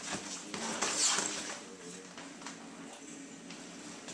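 Two small terrier-type dogs play-wrestling on a leather couch: paws and bodies scuffling and rustling on the leather, loudest about a second in.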